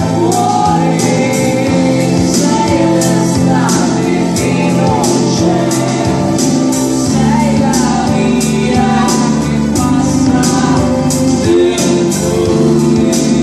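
A man singing live to his own acoustic guitar, the guitar strummed in a steady rhythm of about two strokes a second.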